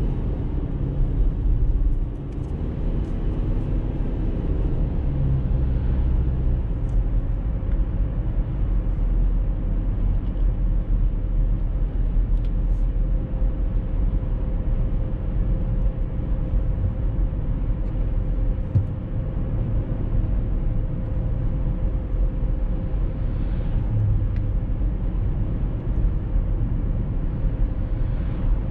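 Car driving at a steady speed: a continuous low rumble of tyres on the road and the engine, with a faint steady hum above it.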